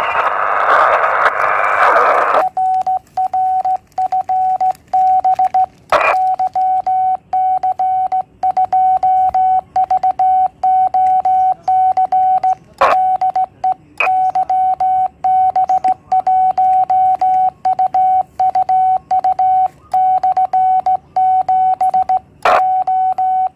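Morse code being sent on a Yaesu transceiver in CW mode: its sidetone beeps on and off at one steady pitch as the hand key is worked. The first two seconds or so are hiss and band noise from the receiver. A few sharp clicks fall among the beeps.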